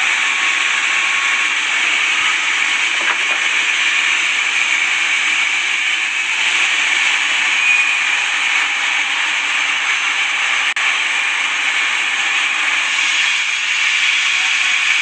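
Sawmill saw cutting through timber: a steady, loud, high hissing whine that runs on without a break.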